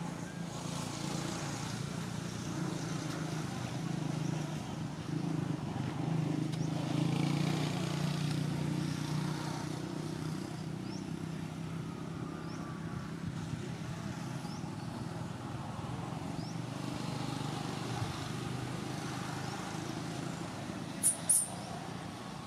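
Steady low rumble of motor vehicle traffic, a little louder around the middle, with two short high-pitched chirps near the end.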